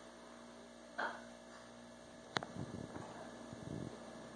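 Refrigerator clicking sharply a little past halfway, followed by a few soft low knocks, over a steady low electrical hum.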